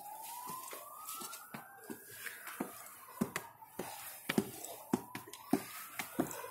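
Footsteps climbing stone stairs in sneakers: short soft taps at a steady walking pace, about two a second. A faint thin tone slowly rises and falls behind them.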